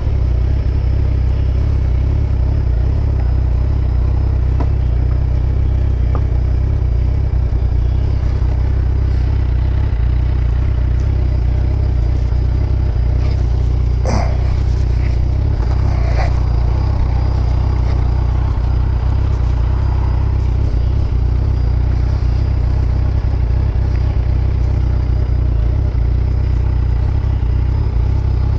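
Motorcycle engine idling steadily with a deep, even rumble, heard close up from on the bike. A couple of short clicks come about halfway through.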